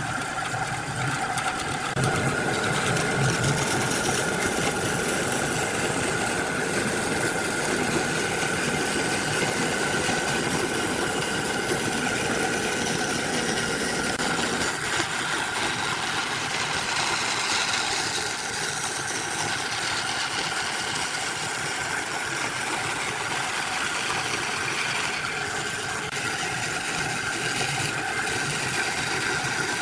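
A motor-driven machine running steadily with a constant whine; its sound thins out about halfway through.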